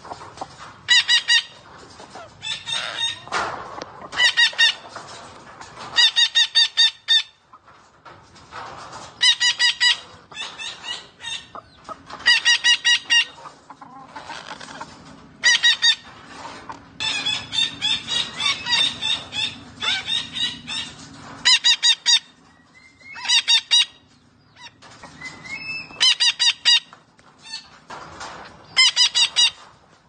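A parrot calling in short bursts of rapid, evenly pulsed notes, about a dozen bursts each up to a second long, repeated every two to three seconds.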